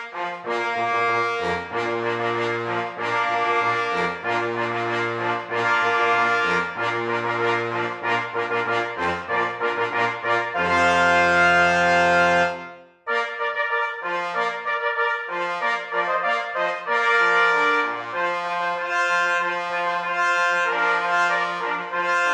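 Background music played on brass instruments, with a long held chord that cuts off suddenly about thirteen seconds in before the tune carries on.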